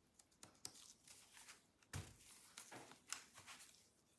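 Faint clicks and light scraping from a thin plastic pry tool working the clips of the MSI Vector 16 HX AI's small rear plastic cover behind the display hinge: a handful of short, quiet ticks, the clearest about two seconds in and just after three seconds.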